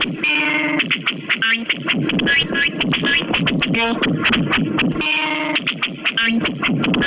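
Loud electronic music with a fast, clicky beat and repeated effected, falling pitched tones in a scratch-like style.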